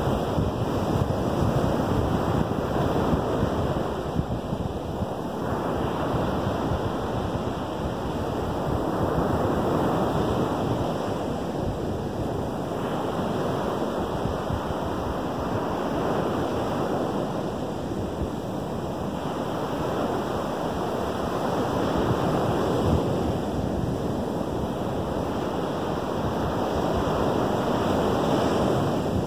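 Lake Michigan waves breaking on a sandy beach: a steady wash of surf that swells and eases about every six seconds.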